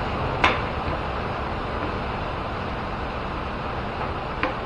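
Two sharp knocks from metal parts being handled while the milling machine's overarm gearbox is fitted, a strong one about half a second in and a lighter one about four seconds later, over a steady background hiss.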